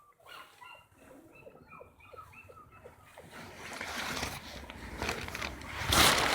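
Dogs whimpering in a string of short, high squeaks, followed by rustling and splashing noise that swells to a loud burst about six seconds in.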